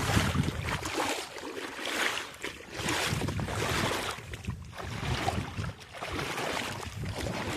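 Water splashing and sloshing close by in irregular swells, as a hooked brook trout is brought in through the shallows.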